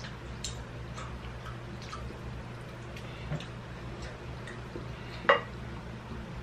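Metal chopsticks clicking lightly against a glass plate while picking up stir-fried noodles: a scattering of small, irregular ticks, with one louder, sharper sound a little past five seconds in. A steady low hum runs underneath.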